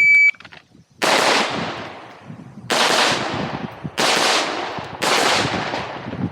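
An electronic shot timer gives one short beep, then a competition rifle fitted with a muzzle brake fires four shots at uneven spacing, each ringing out with a long echo.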